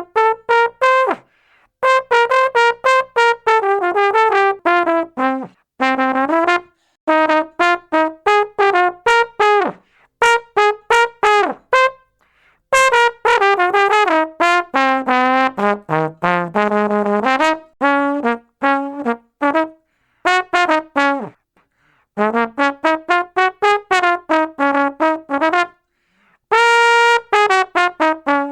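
A solo brass instrument playing phrases of quick, separate notes that climb and fall in pitch, with short pauses between phrases and one long held note near the end.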